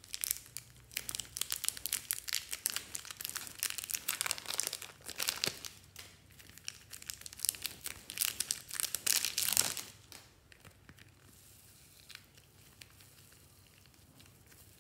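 Thin plastic slime packets crinkling and crackling as they are squeezed and peeled open in the hands, with dense quick crackles; the crinkling stops about ten seconds in, leaving only faint soft handling sounds.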